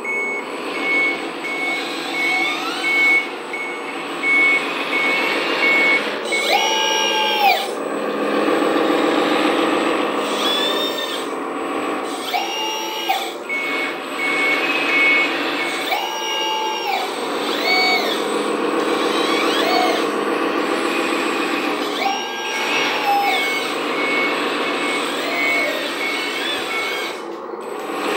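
Sound module of a 1/14 hydraulic RC articulated dump truck playing a simulated diesel engine running, with regular reversing warning beeps in three stretches while the truck backs up. Several short higher-pitched blasts, each about a second long, break in.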